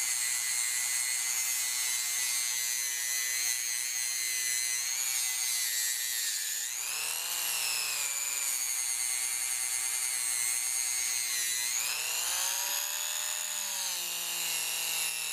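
Dremel rotary tool with a right-angle attachment running a sanding pad on the steel ratchet head, a steady high whine. Its pitch sags and recovers twice, near the middle and about three quarters through, as the motor is loaded against the metal.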